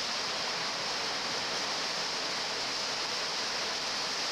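Hurricane wind and heavy rain making a steady, unbroken roar of noise.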